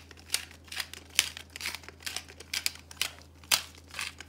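Black pepper grinder being twisted by hand, crunching out pepper in a run of short, irregular crackles, a few a second.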